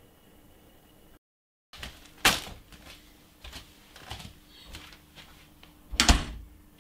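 Knocks from a plastic kitchen bin as a banana peel is dropped onto a heap of peels: a sharp knock about two seconds in, a few lighter knocks, then a heavier thud about six seconds in.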